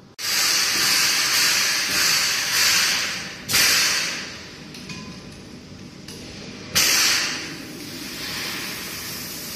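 Compressed air hissing through a fiberglass chopper spray machine as the air supply is opened: a sudden loud rush of air lasting about three seconds, two more loud blasts about three and a half and seven seconds in, then a lower steady hiss.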